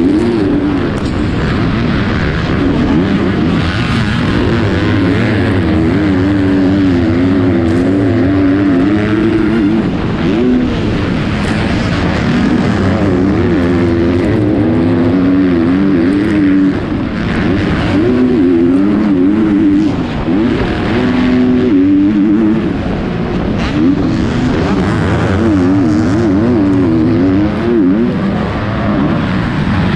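Onboard sound of a 250cc four-stroke motocross bike racing flat out, its engine revs climbing and dropping every second or two through shifts and corners, with other race bikes around it.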